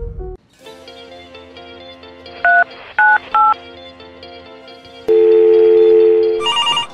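Three telephone keypad tones as 1, 2, 5 is dialled on a smartphone, then a steady telephone call tone for about a second and a half, over soft background music.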